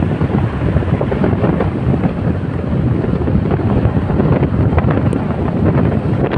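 Steady wind buffeting on the microphone at the open side window of a moving car, over the car's road noise.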